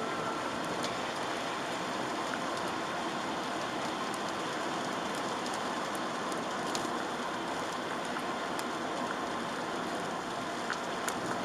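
Rain falling on a moving car, heard from inside: a steady hiss of rain and wet road, with scattered sharp ticks of single drops striking the body and windshield.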